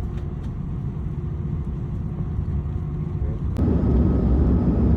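Airliner cabin noise in flight: a steady low rumble of engines and airflow. About three and a half seconds in it jumps suddenly louder and fuller.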